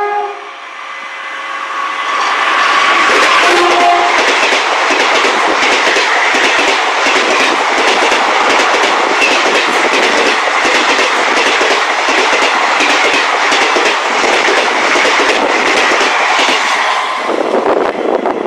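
Express passenger train running through a station at speed: a loud steady rush of coaches with the clickety-clack of wheels over rail joints. A short horn note sounds about three and a half seconds in.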